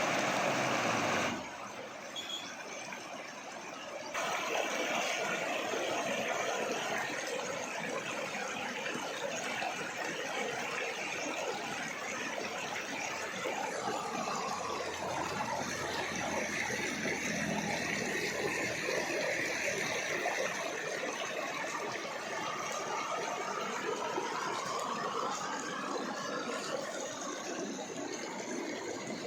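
Waterfall rushing, a steady noise of falling water. It drops in level about a second in and comes back up about four seconds in.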